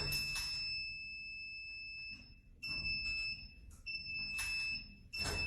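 A high, steady electronic tone that breaks off briefly a few times, with short rustling noises.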